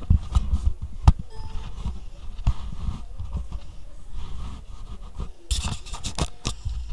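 Handling noise from the recording camera being moved about: low rubbing rumble with scattered knocks and clicks, one louder knock about a second in. Near the end comes a quick run of sharp scrapes and rustles as objects are handled.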